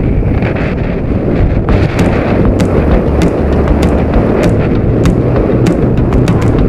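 Wind buffeting the microphone while riding a scooter at road speed, a dense low rumble. From about two seconds in, sharp clicks come about once or twice a second.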